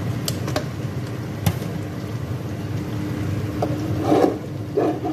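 Steady low rumble of stovetop cooking as spiced chicken pieces sit over the heat in a nonstick frying pan. A few light clicks come in the first second and a half, and two short muffled bursts come near the end.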